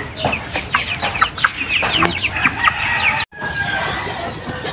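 Broiler chickens calling in a rapid run of short, high, falling peeps and clucks. The calls break off abruptly a little over three seconds in, leaving quieter yard sound with a thin steady high tone.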